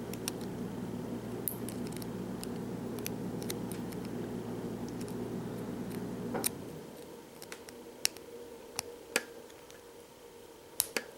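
Small metal clicks and scrapes of a tool prying the circlip (C-clip) off a padlock's removable core, with one louder click about six seconds in.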